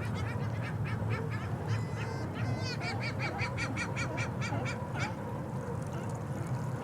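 A gull calling a fast series of high, honking notes, about five a second, with a sliding call in the middle. The calls stop about five seconds in, over a steady low rumble of harbour noise.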